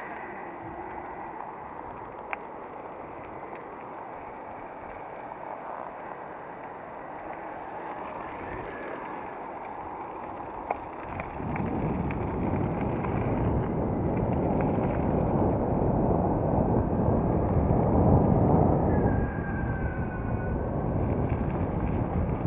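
Rumble of an Evolve electric longboard's all-terrain tyres rolling on gravel, mixed with wind buffeting the microphone; it gets louder and heavier about halfway through.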